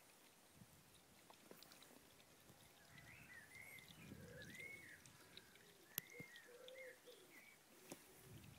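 Faint animal calls: a run of short, arching cries starting about three seconds in, over quiet outdoor ambience, with a single sharp click about six seconds in.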